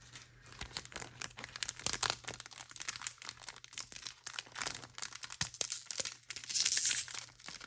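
Foil wrapper of a Pokémon card booster pack crinkling and tearing as it is opened, in many small crackles with a longer rip a little before the end.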